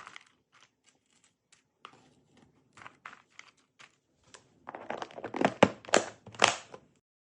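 Items being handled during a fridge restock: scattered light clicks and taps, then about two seconds of busy rustling and clatter, with three sharp knocks near the end.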